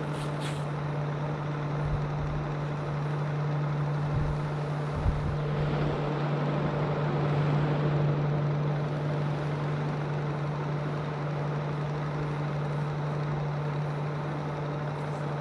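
A steady low mechanical hum, with a few soft low knocks about two, four and five seconds in.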